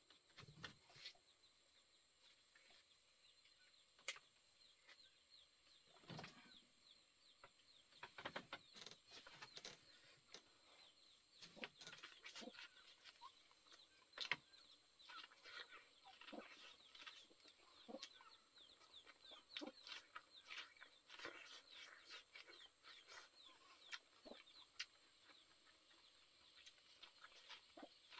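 Faint scattered clicks and smacks of a man biting and chewing boiled corn on the cob, with chickens calling in short high chirps in the background.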